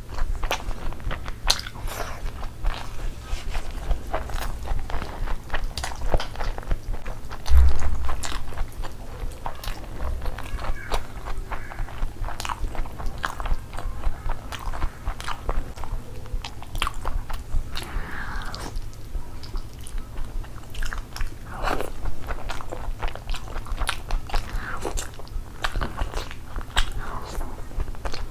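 Close-miked eating of chicken curry and fried rice by hand: a steady run of wet chewing, smacking and biting clicks. A single dull thump about eight seconds in is the loudest sound.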